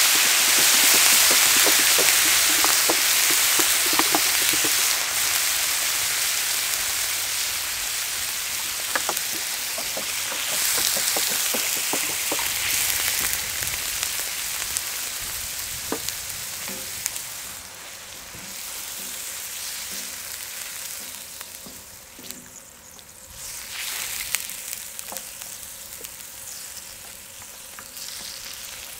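Water sizzling hard on a hot cast-iron cauldron-lid griddle, a loud steaming hiss with scattered crackles and pops. It fades gradually into a quieter sizzle as the broth settles.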